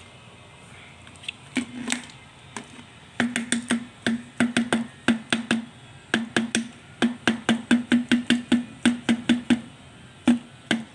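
Rapid sharp knocks on something hollow that rings briefly at one low pitch, in uneven runs of about three to five a second with short pauses between.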